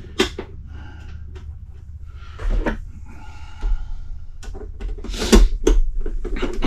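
Plastic housing of a Honeywell HZ510 space heater being handled and screwed back together: scattered clicks and knocks with brief scraping, the sharpest clicks coming after about five seconds as a screwdriver works a screw in.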